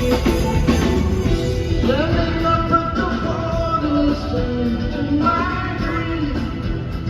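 Rock music: a guitar-backed song with a singing voice, the held, sliding vocal lines coming in about two seconds in and again near the end.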